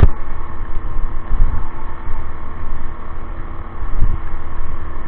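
Wind buffeting the microphone in low gusts, hardest at the start and again about four seconds in, over a steady hum from a moving 72V Cyclone e-bike.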